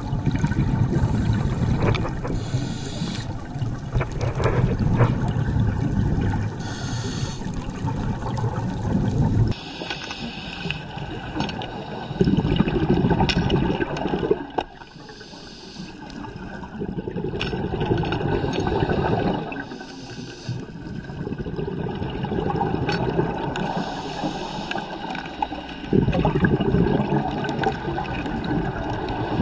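Scuba regulator breathing underwater: long gurgling rushes of exhaled bubbles alternate with shorter hissing inhalations, with a few sharp clicks scattered through.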